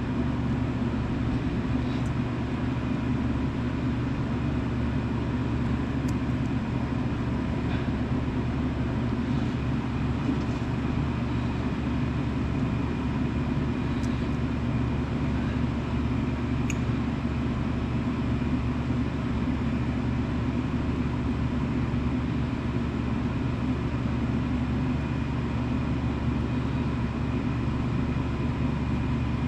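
An engine running steadily at a constant speed, with an even hum and no revving.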